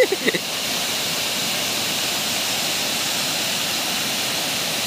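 Water pouring over a wide stone dam spillway: a loud, steady rush that does not change.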